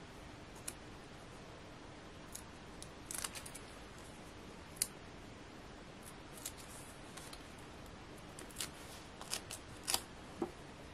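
Faint, scattered rustles and light clicks of paper and card being handled as card layers and backing paper are worked by hand: a small cluster about three seconds in and several more near the end.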